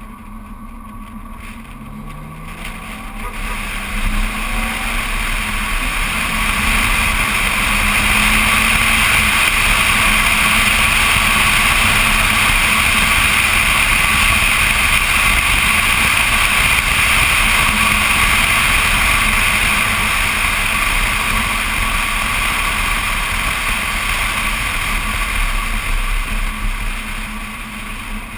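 Wind and road noise of a BMW Z4 Coupé on the move, picked up by a camera mounted on the outside of the car: a steady rushing that swells over the first several seconds, holds, and eases off near the end.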